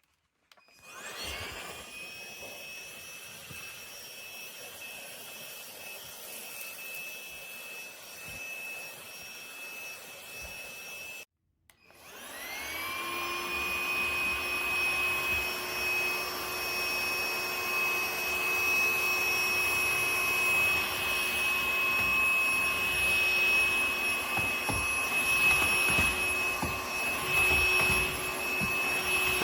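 A Ljuren cordless stick vacuum's motor spins up with a rising whine and runs steadily at a high pitch. It stops about eleven seconds in, then starts again with another rising spin-up and runs louder through the rest.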